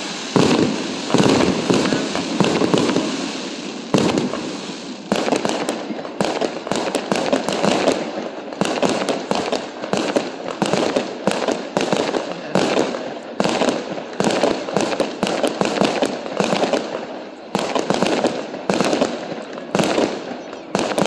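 Fireworks display going off: a continuous run of bangs and crackling, several a second, with no let-up.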